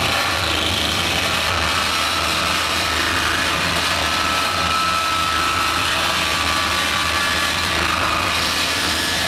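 Harsh noise electronics played live on an analog synthesizer: a dense, unbroken wall of noise from low rumble to high hiss, with a thin high whistle held for a couple of seconds in the middle.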